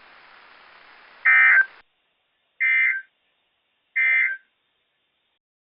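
Three short bursts of Emergency Alert System data tones over NOAA Weather Radio, about a second and a half apart: the end-of-message code sent three times, closing the weekly test. Faint radio hiss runs under the start and stops with the first burst.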